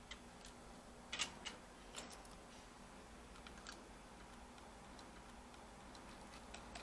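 Faint, scattered small clicks and taps, a few sharp ones about a second and two seconds in and another near the middle, from small hard parts being handled: a screw and laptop parts during the repair.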